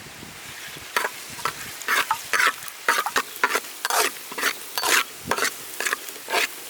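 Garlic frying in hot oil in a pan: a steady sizzling hiss, with a utensil stirring and scraping across the pan in sharp strokes about twice a second.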